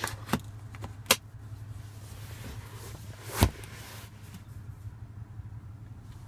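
Two sharp plastic clicks as the fold-out cup holder in a 2014 Audi Q7's rear centre armrest is pushed shut. About three and a half seconds in comes a heavier thud as the armrest is folded up into the seatback, over the steady low hum of the running car.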